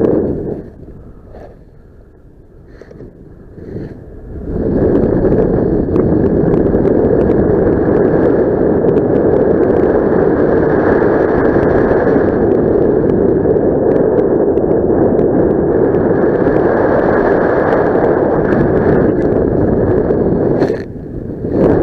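Wind buffeting the camera's microphone, a loud, steady rushing noise. It drops away for a few seconds near the start, comes back, and dips once more briefly near the end.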